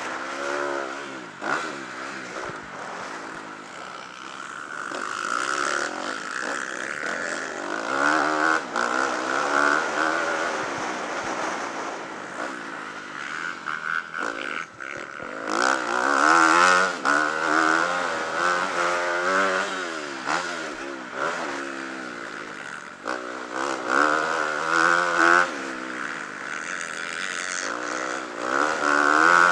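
Motocross bike's engine heard from a camera mounted on the bike: it revs up again and again, rising in pitch under acceleration, then drops back as the rider shifts or backs off for jumps and corners.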